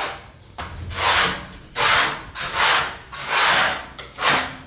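Hand sanding of a cement-plastered wall: five scratchy rubbing strokes, each under a second, in a steady back-and-forth rhythm.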